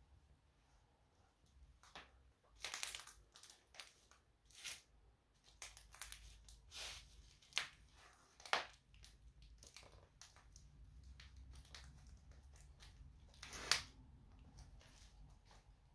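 Sneaker soles (Nike Air Max Plus) stepping on and crushing dry, brittle flakes on a hard floor: faint, irregular crunches and crackles, with two sharp ones a little past the middle and the loudest near the end.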